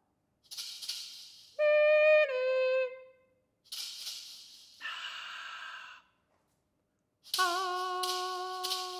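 Unaccompanied female voice in a contemporary solo-voice piece: a breathy hiss, a short sung note that steps down in pitch, more hissed and whispered sounds, then after a pause a long held sung note that wavers briefly as it begins.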